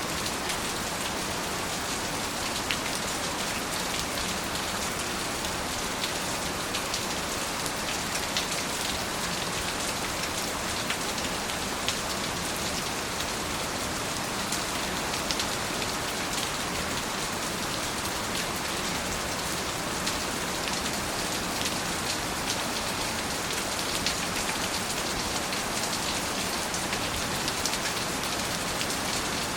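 Steady rain falling, with a constant hiss and scattered individual drops ticking on a surface.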